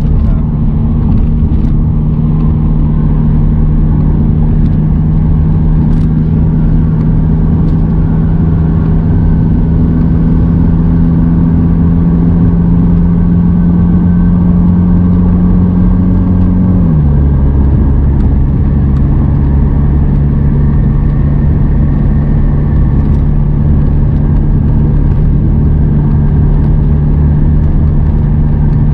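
Chevrolet Captiva at highway speed, heard from inside the cabin: a steady low engine and drivetrain drone under tyre and road noise. The drone's pitch creeps up slowly, then drops abruptly about seventeen seconds in and holds steady.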